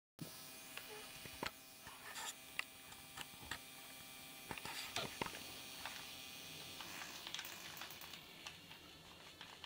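Steady electrical hum with scattered faint clicks and ticks, starting just after a brief dead-silent cut.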